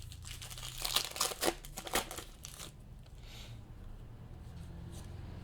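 Trading cards and their packaging being handled: a quick run of crinkling and sharp clicks for the first couple of seconds, then quieter handling.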